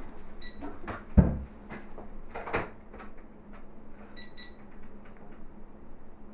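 Knocks and a dull thump as a cat is set down and shifted on the platform of an electronic pet scale, the thump about a second in being the loudest. Short high electronic beeps sound once early and then twice in quick succession past the middle.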